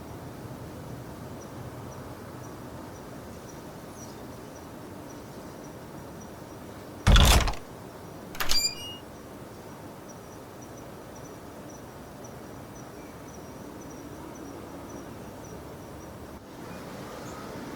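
Steady low background noise broken by two loud sudden knocks about a second and a half apart, the second shorter and followed by a brief metallic ring.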